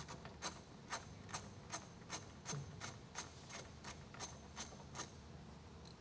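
Socket ratchet on a long extension clicking steadily as a 10 mm mirror mounting bolt is turned out, about two or three faint clicks a second that stop about five seconds in.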